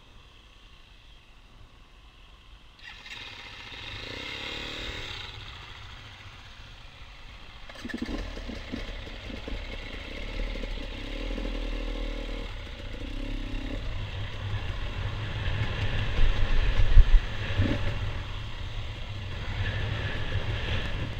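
Off-road motorcycle engine: quiet at first, then running and revving from about three seconds in, growing louder with rises and falls in pitch, loudest late on.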